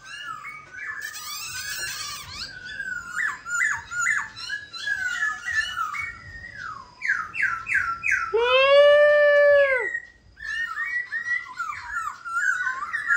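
Black-throated laughingthrush singing: a fast run of varied chattering, warbling notes, broken about two thirds of the way through by one long, loud, arched call that rises and falls, then more quick chattering.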